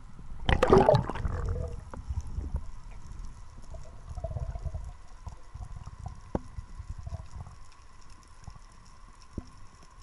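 Underwater sound picked up by a freediving spearfisher's camera: a loud gurgling rush of water and bubbles about half a second in, then low rumbling water movement with a few sharp clicks.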